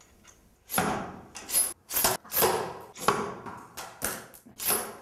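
Metal lab apparatus being handled: about eight sharp clinks and knocks, several with a brief high metallic ring, as the monkey gun demonstration is reset for another shot.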